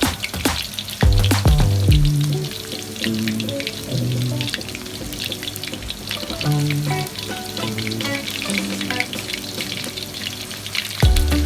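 Food frying in a pan, a steady crackling sizzle with sharp spits, under background music with a bass line that is loudest at the start and again near the end.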